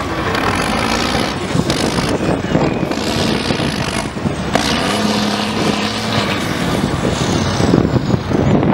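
Diesel engine of a Liaz trial truck running loud and steady under heavy load as the truck climbs a steep dirt slope.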